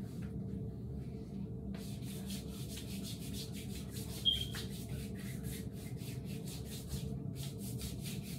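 Hands rubbing lotion into skin in quick repeated strokes, about three a second, with a short pause near the start and a brief squeak about four seconds in. A steady low hum runs underneath.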